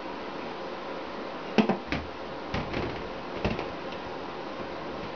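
Clicks and light knocks as a bow's outboard limb is handled in its metal fulcrum bracket: a quick cluster of sharp taps between about one and a half and three and a half seconds in, over a steady background hiss.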